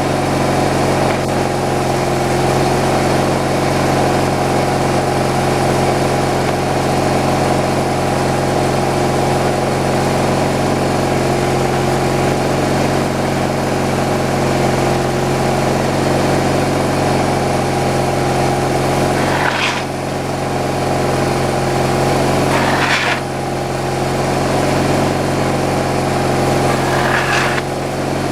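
Engine of a homemade slab-wood kindling cutter running steadily. Three times in the last third it briefly changes note, a short higher sweep each time.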